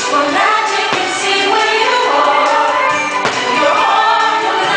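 Fireworks show soundtrack of music with a choir singing, with two sharp firework bangs cutting through, about a second in and again past the three-second mark.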